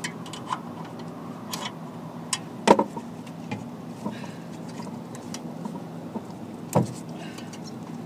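Scattered sharp clicks and knocks from hands and a tool working at the compressor's wiring inside an opened condenser unit. The loudest comes about two and a half seconds in and another just before the end, over a steady low hum.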